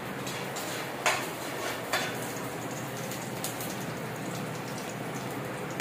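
Hot oil sizzling steadily in a frying pan on a gas stove, with a few sharp metal clinks of a spatula against pan or plate.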